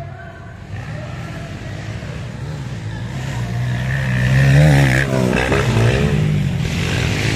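Single-cylinder four-stroke motocross dirt bike engine coming closer and passing, loudest about halfway through, its pitch rising and falling several times as the rider works the throttle.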